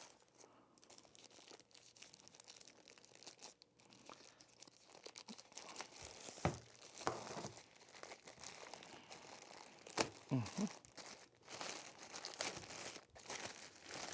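Faint crinkling and rustling of product packaging being handled, with a few light knocks from the unit being moved.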